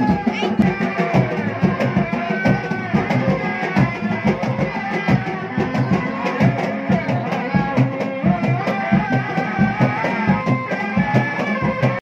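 Sundanese reak ensemble music: a steady, driving beat of drums under a wavering melody line.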